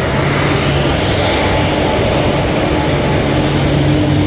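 WAG-5P electric locomotive and its passenger coaches rolling slowly past at close range as the train pulls into the platform: a steady mechanical hum over the rumble of wheels on the rails.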